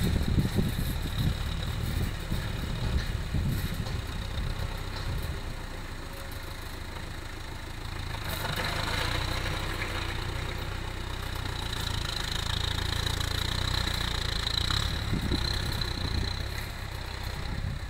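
Farm tractor's engine running steadily under a low chug while it works a front blade on a dirt road, growing louder about halfway through as the tractor comes closer.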